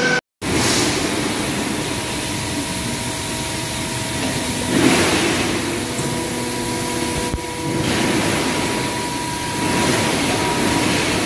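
Steady factory machine noise around a CNC press brake: a broad rushing hum with a faint steady tone running under it, swelling briefly about halfway through. The sound cuts out for a moment just after the start.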